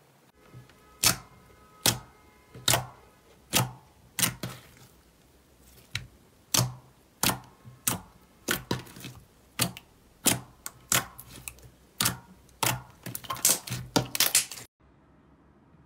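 Thick slime pressed and folded by hand, giving sharp popping clicks about once a second. The clicks come faster, several a second, near the end, then stop suddenly.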